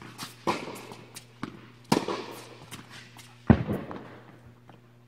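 Tennis rackets striking the ball in a rally in an indoor court hall: three sharp hits about a second and a half apart, each echoing, the third the loudest, with lighter taps between. A steady low hum runs underneath.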